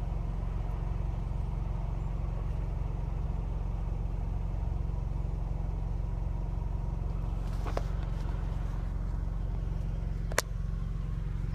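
Car engine idling, a steady low hum heard from inside the cabin, with a sharp click near the end.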